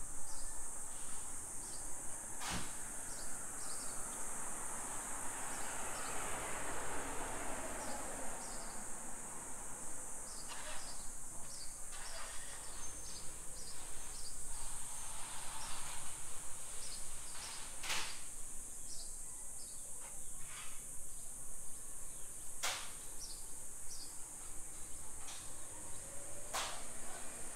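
Steady high-pitched buzz of cicadas over street ambience, with light footsteps ticking about twice a second. A car passes, swelling and fading about four to ten seconds in, and a few sharp clicks sound later on.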